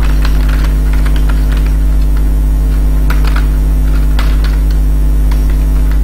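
Loud, steady electrical mains hum picked up by the recording setup, with faint, irregular clicks of computer keys being typed.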